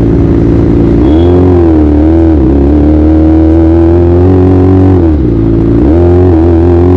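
Kawasaki ZX-25R's 250 cc inline-four engine running under way at the rider's seat, its note rising, dipping about two seconds in, holding steady, dipping again about five seconds in, then climbing again.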